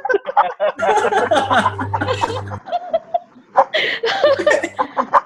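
Several audience members laughing and chuckling over a video call, in bursts that die down about three seconds in and pick up again near the end.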